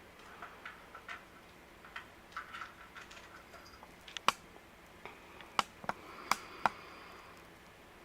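A cat eating raisins: irregular small clicks and smacks of chewing, soft at first, with a few sharper clicks in the second half.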